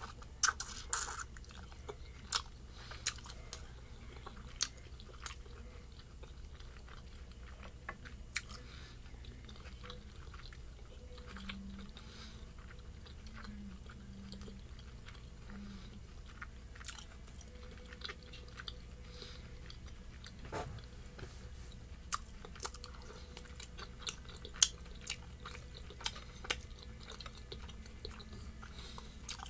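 Close-miked chewing of pan-fried dumplings, with sharp wet mouth clicks and smacks in clusters in the first few seconds and again near the end, and a quieter stretch of chewing between with a few short low hums.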